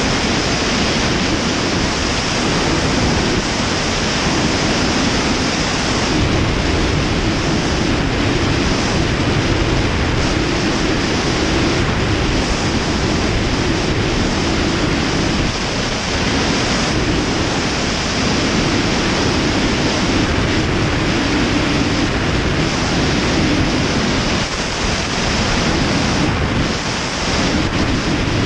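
Steady heavy wind rush over a wing-strut-mounted action camera on an Ikarus C42 ultralight in flight, with the low drone of the running engine and propeller beneath it. The low drone dips briefly a few times.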